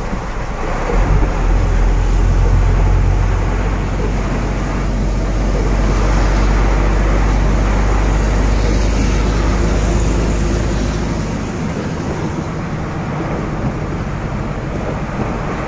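Steady low drone of a truck's engine heard inside the cab while driving through heavy, wind-driven rain, with a dense hiss of rain and wet-road spray over it. The low rumble eases a little about two thirds of the way through.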